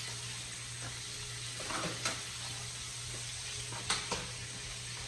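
Whole red snapper frying in hot oil in a skillet, a steady sizzle, with a few light clicks about two seconds in and again near four seconds.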